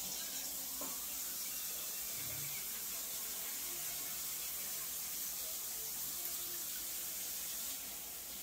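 Kitchen tap running steadily into a sink, easing slightly near the end.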